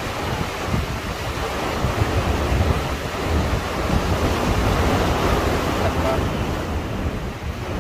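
Wind buffeting the microphone in gusts over a steady rush of waves at the shore.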